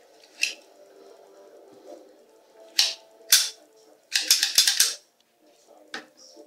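Ekol Botan 9mm P.A.K. blank pistol being handled, its mechanism giving sharp metallic clicks: single clicks about half a second and about three seconds in, a quick run of about six clicks around four seconds in, and one more near the end.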